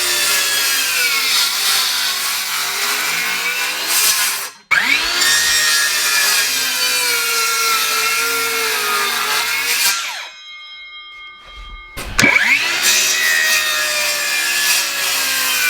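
Power saw cutting framing lumber in three long passes: it stops about four seconds in, runs again for about five seconds, and after a short lull starts up again about twelve seconds in.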